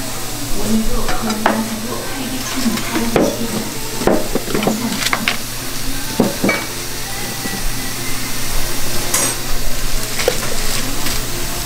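Waffle making: metal utensils stirring, scraping and clicking against pans and containers, with scattered sharp taps over a steady sizzling hiss.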